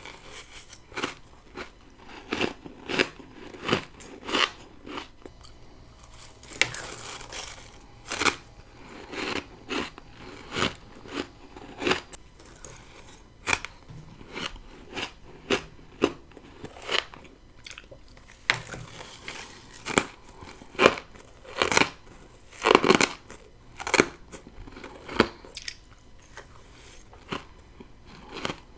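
Close-up biting and chewing of freezer frost built up by a humidifier in a deep freezer: a sharp crunch every half second to a second, with softer chewing between bites.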